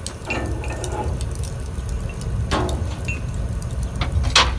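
Lumps of charcoal clinking and clattering as they are handled and laid into a forge firepot, with two sharper clinks about two and a half and four and a half seconds in, over a low steady rumble.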